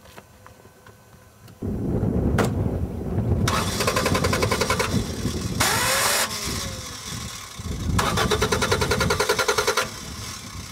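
Car engine starting about a second and a half in and then running, with two louder stretches of fast, even pulsing.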